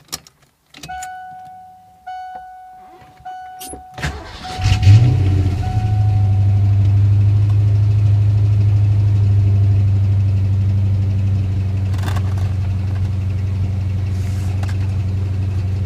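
A warning chime dings a few times. Then the 1988 Mustang GT's 5.0 V8 cranks and catches about four and a half seconds in, flares briefly, and settles into a steady idle that is still a little rough. The owner traces the roughness to moisture and corrosion in the distributor, cap and rotor.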